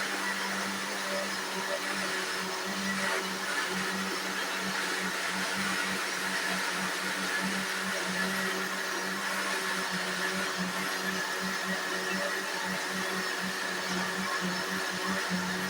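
Small countertop blender running steadily, churning a thin batter of oats, bananas and water, with a continuous motor hum.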